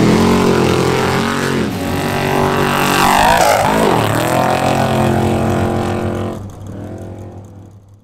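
Off-road desert race trucks' engines running at high revs as they race past. About three to four seconds in, the engine note drops and then climbs sharply, as a truck takes a jump. The sound fades out near the end.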